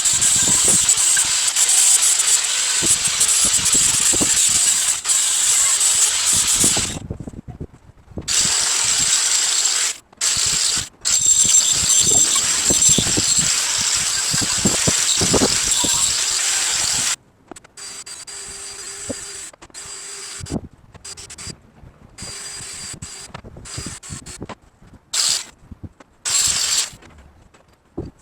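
Harsh scraping of a brush against rusty steel vise parts, in long stretches of several seconds with short breaks, then shorter, quieter strokes about two thirds of the way through.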